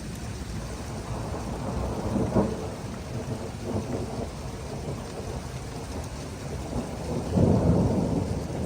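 Thunder rumbling over steady rain from an approaching thunderstorm, with a louder rumble swelling about seven and a half seconds in.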